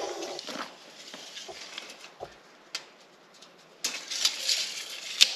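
Handling noise from measuring a length of PVC pipe with a steel tape measure: scattered light clicks and knocks, a rustling scrape about four seconds in, and a sharp click near the end.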